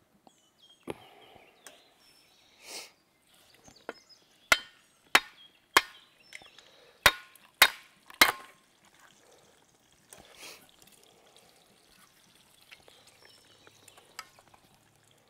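Six sharp blows on the butt of a locust-wood handle, driving it into the socket of a Cold Steel shovel. They come in two quick groups of three, a little over half a second apart, and fainter knocks and handling sounds come before and after.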